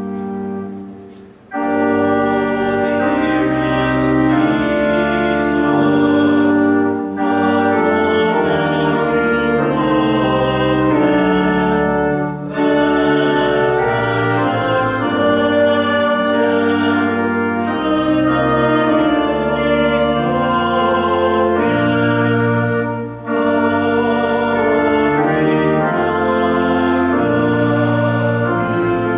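Church organ playing a hymn in sustained chords, pausing briefly between phrases four times.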